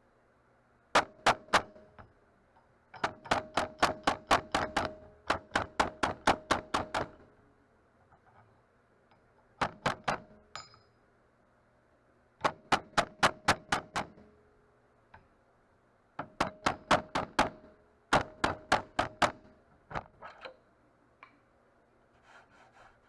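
Body hammer tapping on a car hood panel in quick bursts of about four blows a second, the metal ringing under the blows: tapping down the raised eyebrow around a dent before filler.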